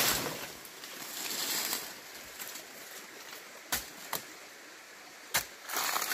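Machete chopping into a small tree trunk: three sharp chops, two close together about four seconds in and a third a second later, over a steady high hiss.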